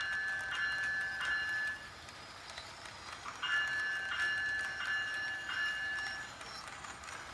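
HO scale model freight train of container well cars running past on a curve of track. Through it a high tone sounds in short pulses about one and a half times a second, breaking off for about a second and a half partway through.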